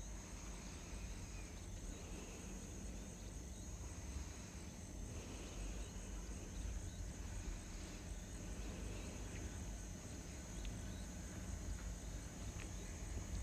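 Quiet ambience: a low steady rumble under a faint steady high hiss, with a few faint scattered ticks and chirps.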